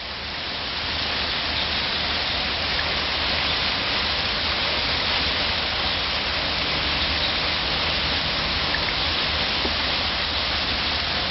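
Hail falling hard, a dense steady hiss and patter of hailstones striking the ground and surrounding surfaces. There is no rain mixed in. The sound builds over the first second, then holds steady.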